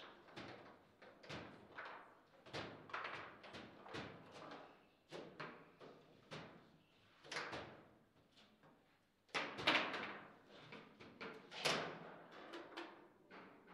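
Table football game in play: an irregular run of sharp knocks and clacks as the plastic figures strike the ball and the ball hits the table. The hardest knocks come about ten and twelve seconds in.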